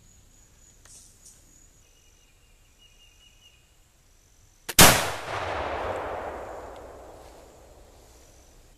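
A single shot from a Lyman Deerstalker .50 caliber flintlock rifle about halfway through: a short click, then the main charge goes off with a loud crack and a long rolling echo that dies away over about three seconds.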